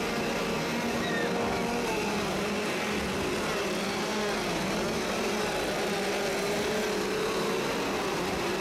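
Chainsaw engines running and revving, their pitch wavering up and down, over a crowd's chatter.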